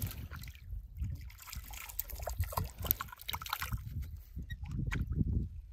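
Water splashing softly, with scattered light knocks.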